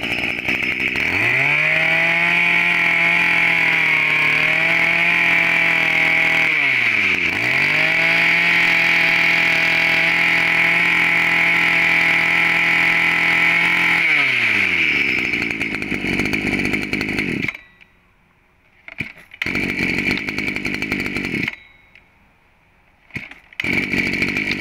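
Maruyama 23 cc two-stroke brush-cutter engine running at high revs, dipping briefly once and picking back up. About two-thirds of the way through it winds down and cuts out, followed by two short stretches of rougher running with silent gaps between them.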